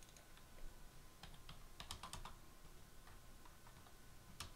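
Faint, irregular keystrokes and clicks on a computer keyboard, a few bunched in the middle and a single one near the end.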